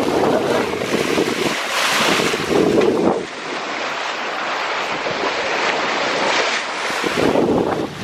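Wind buffeting the microphone over the rush of open-ocean waves on a sailboat under way, gusting harder in the first few seconds and again near the end.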